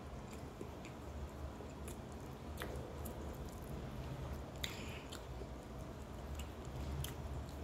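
A person chewing a mouthful of rice and fried food, quietly, with a few small clicks.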